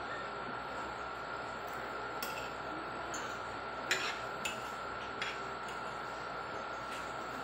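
Metal fork and spoon clinking against a ceramic plate while picking at food: a few short, sharp clinks, the loudest about four seconds in, over a steady hiss and faint high tone.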